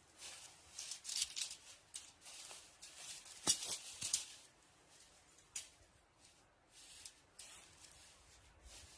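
Irregular rustling and crackling, with a sharp click about three and a half seconds in.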